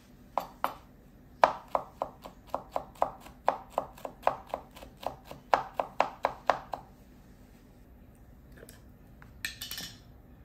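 Chef's knife chopping yuzu peel on a wooden cutting board: a quick run of sharp knocks, about four a second, that stops about two-thirds of the way through. A brief scrape follows near the end.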